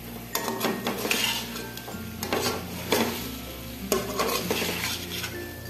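Metal spatula scraping and stirring chicken pieces around a metal pot, with several scrapes against the pot, over the steady sizzle of the chicken frying in its oil as it finishes cooking.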